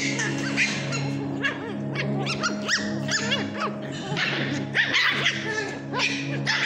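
Pomeranian puppies yipping and barking in play, many short high yelps, over steady background music.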